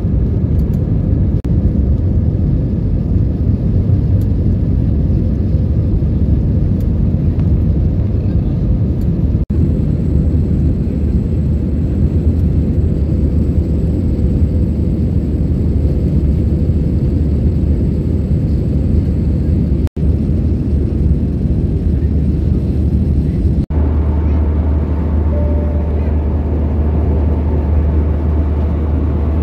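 Steady cabin noise of an Airbus A320 in flight: the low roar of its jet engines and the airflow past the fuselage. It breaks off for a moment three times, and the low rumble is stronger after the last break.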